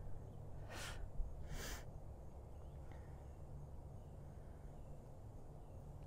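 A horse blowing out through its nostrils: two short breathy snorts about a second in, under a second apart, over a faint low rumble.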